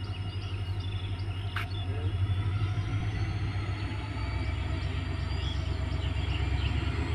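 WDG4D diesel freight locomotive's engine running with a steady low rumble as it pulls a train of wagons toward the platform, growing louder. A faint high whine slowly rises in pitch underneath. Birds chirp in the background.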